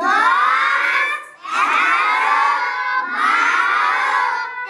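A class of young children chanting loudly in unison, counting aloud: three drawn-out calls, each about a second and a half long and falling in pitch.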